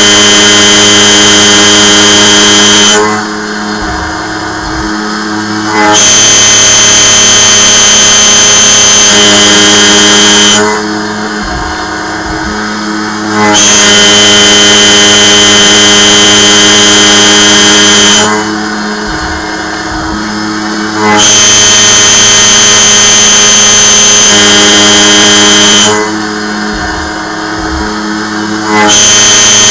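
Sieg KX1 CNC mill's 2-flute 1/4-inch carbide end mill at 5000 rpm cutting 1018 steel dry, with a loud high-pitched squeal. The loud cutting runs in stretches of about seven seconds, each broken by a quieter gap of about three seconds. The owner puts the noise down to the end mill becoming dull.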